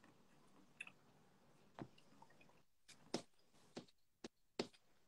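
Faint wet mouth clicks and lip smacks of someone chewing food close to a phone microphone, about seven short sharp ones spread irregularly over near silence.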